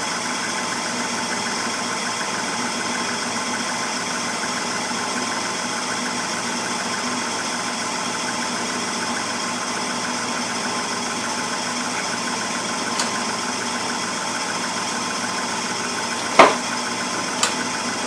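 Gas furnace with a Honeywell SmartValve running a steady motor hum through its startup sequence. Near the end a sharp click as the main gas valve opens and the burners light, followed by a smaller click. There is no explosive thump: the replaced valve lights the burners normally.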